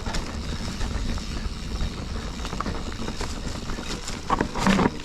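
Full-suspension mountain bike rolling over rocky singletrack: tyre noise on rock and dirt with a low rumble, broken by scattered knocks and rattles from the bike.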